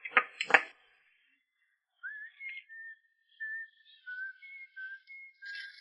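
Two sharp knocks right at the start, then after a short pause a whistled tune: a single thin line of short held notes stepping between a few pitches.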